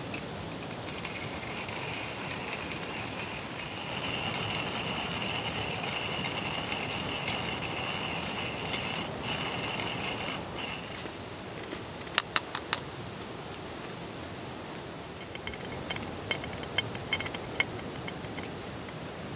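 Steady rushing background noise with a faint high steady tone for about ten seconds, then a quick run of four sharp clicks, and later a scatter of light clicks and clinks.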